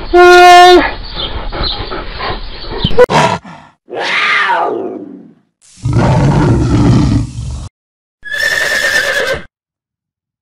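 A string of separate animal calls, cut one after another: a loud, held call at the start, a falling call about three and a half seconds in, a tiger roaring for about two seconds around six seconds in, and a horse whinnying briefly near the end.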